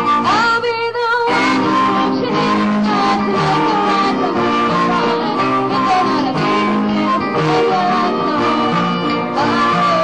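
Live band playing: accordion and electric guitar with a voice singing over them.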